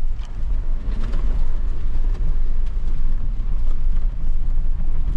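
Jeep driving through a shallow water crossing: a steady low engine and drivetrain rumble with water churning around the tyres.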